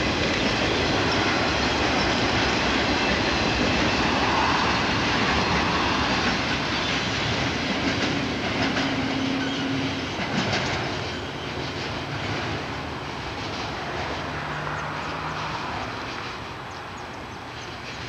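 Intermodal freight train's piggyback flatcars with highway trailers rolling past: a steady rumble of steel wheels on rail with rhythmic clicking over the rail joints. It grows quieter in the second half.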